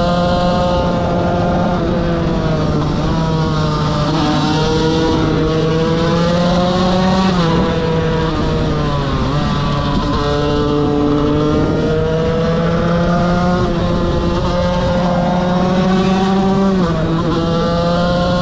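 KTM 125 motorcycle engine running hard at high revs, its pitch slowly climbing and then dipping several times.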